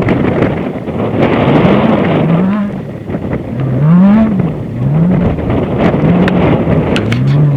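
Off-road desert race buggy's engine at speed, its pitch rising and falling five or six times as the throttle comes on and off, over a steady rush of wind and terrain noise.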